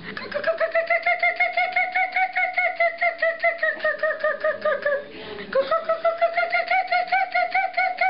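A woman imitating a kookaburra's laughing call with her voice: a fast, even run of hoots, about nine a second, that rises a little and then slides down in pitch, breaks for a breath about five seconds in, and starts up again.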